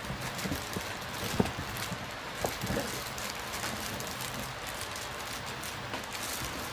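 Clear plastic packaging bags crinkling and rustling as they are handled, with irregular small crackles and a few sharper clicks, the loudest about a second and a half in.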